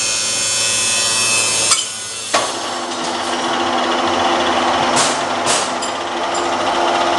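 A 1IS611V screw-cutting lathe running with a steady gear whine. About two seconds in there is a clunk and the sound briefly drops. A second clunk follows, and the lathe runs on at a different pitch, as if its speed had been changed. Two sharp clicks come later.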